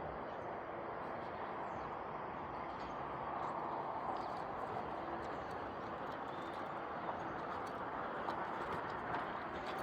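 Stream water running steadily past a wall of tyres, an even rushing sound.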